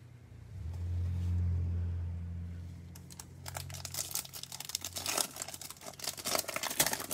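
Crinkling and tearing of a Topps Chrome baseball card pack's foil wrapper as gloved hands open it: a dense crackle from about three seconds in to the end. Before it, a low rumble for a couple of seconds.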